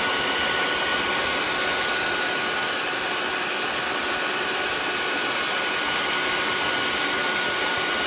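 SilverCrest electric stand mixer running steadily at speed, its twin beaters whirring through batter in the bowl, with a steady high motor whine.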